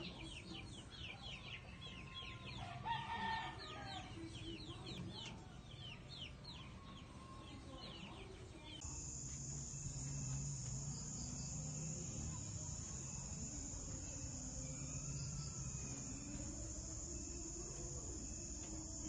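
Birds chirping in quick, repeated downward-sliding notes, with a louder call about three seconds in. Then, at an abrupt cut about nine seconds in, a steady, high, continuous chorus of night crickets.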